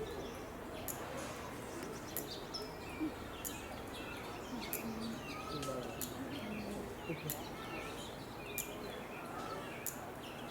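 Small birds chirping with many short, sharp, high chirps scattered throughout, over indistinct background voices of people.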